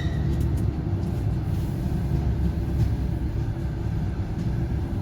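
Low, steady rumble of a passenger train rolling slowly, heard from inside the carriage, with a few faint clicks.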